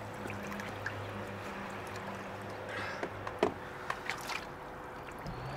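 Water sloshing and splashing in a plunge tub as a person steps in and lowers himself into it, with several short splashes about three to four and a half seconds in. A low hum runs under the first three seconds.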